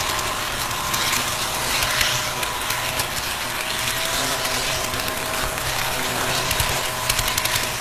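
HO scale model train running along its track, heard from a camera riding on it: a steady mechanical whir of motor and gears with wheel rattle, and a quick run of clicks near the end.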